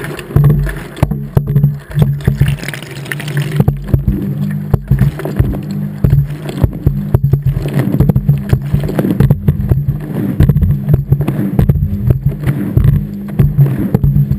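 Front-loading washing machine running, heard from inside the drum: a steady motor hum under irregular knocks and thuds as the wet load tumbles and sloshes.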